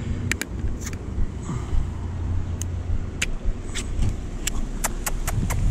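Steady low rumble with about a dozen short, sharp clicks and taps scattered through it.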